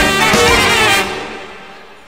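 Dixieland band playing live, brass to the fore with trumpet and saxophone; about a second in the music fades away.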